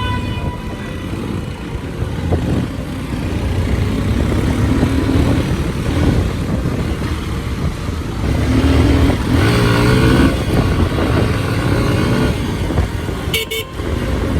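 Motorcycle riding along a road: steady engine and wind rumble, with other traffic and a vehicle horn heard around it. A louder passing engine swells about nine to ten seconds in, and there is a brief knock near the end.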